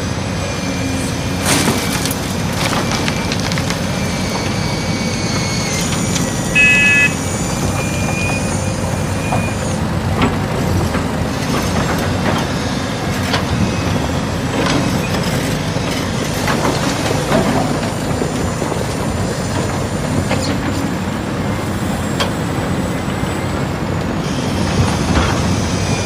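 Radio-controlled toy excavator working in loose soil: steady motor whine, scattered clicks and scraping of dirt, with a short pitched beep about seven seconds in.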